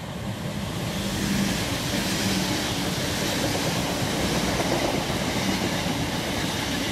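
Class 323 electric multiple unit passing close by, its wheels running on the rails. The noise swells over about the first second, holds steady, and begins to fade near the end.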